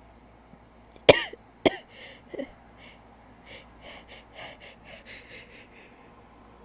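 A woman coughing sharply twice, about a second in and again half a second later, then once more faintly. A run of short quick breaths follows, about two or three a second.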